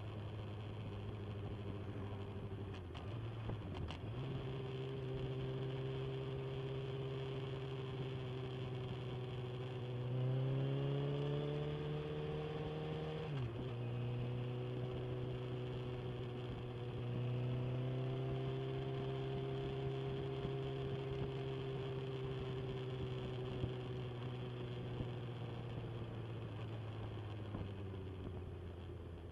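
Inline-four sportbike engine running at steady cruising revs. About ten seconds in it pulls higher for a few seconds, then the pitch drops suddenly at an upshift and settles back to a steady cruise.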